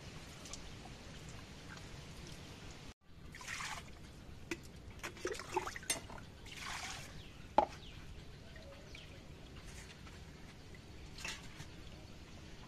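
Water splashing and trickling in short bursts as cut fish pieces are washed by hand in a steel bowl and water is scooped and poured, with a few small clinks and one sharper knock a little past the middle.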